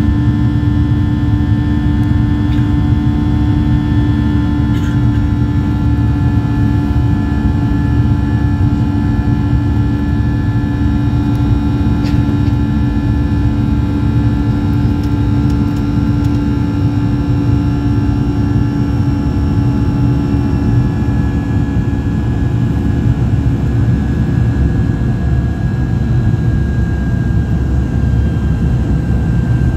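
Cabin noise of a Boeing 737-800 in its climb after takeoff, heard from a window seat beside the CFM56-7B engine: a steady, loud rumble and rush with several thin whining engine tones that drift slowly lower in pitch.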